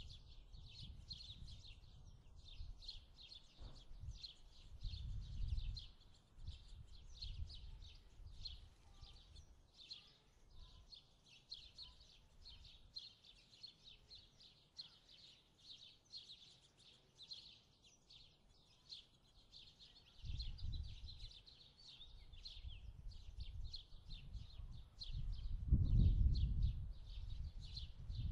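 Continuous high-pitched chirping with low rumbles that come and go, the loudest rumble near the end.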